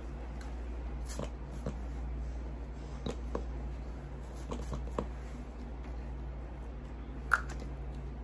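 Scattered light clicks and taps from a hair-styling brush and gel being handled, with one sharper click about seven seconds in, over a steady low hum.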